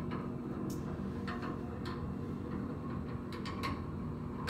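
A few light, short clicks and taps over a steady low hum.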